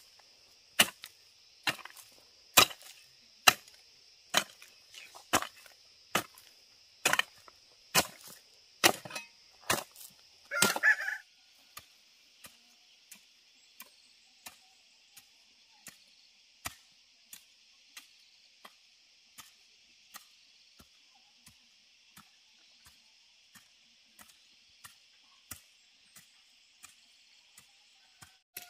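Rhythmic chopping, a blade striking about once a second, loud for the first ten seconds and softer after that. A rooster crows once about ten seconds in.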